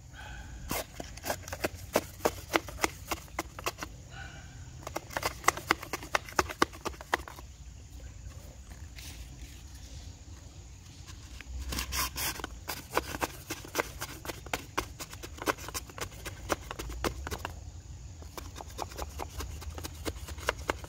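Crumpled paper crinkling and a thin rod scraping and tapping as a paper wad is rammed down a cardboard confetti-cannon tube: runs of quick, irregular clicks and rustles, in two spells with a lull between.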